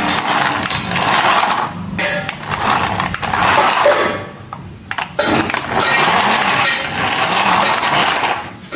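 Toy remote-control car driving in spurts: its electric motor and wheels running on a hard floor, with a short pause about four seconds in.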